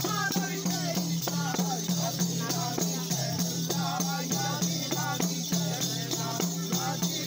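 Procession music: hand drums beaten in a quick, dense rhythm with rattling percussion and voices singing, over a steady low drone.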